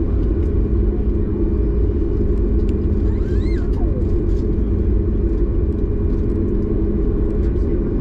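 Steady low rumble of a Boeing 737 MAX 8 airliner heard from inside the passenger cabin. About halfway through, a brief high-pitched sound rises and falls over it.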